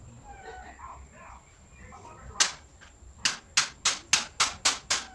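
Hammer blows on a bike part: one sharp knock about two and a half seconds in, then a steady run of knocks at about four a second from about three seconds in.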